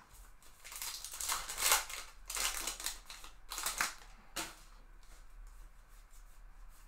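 Trading card pack wrapper crinkling and tearing in several loud bursts as it is ripped open and the stack of cards is pulled out, then faint rustling as the cards are handled.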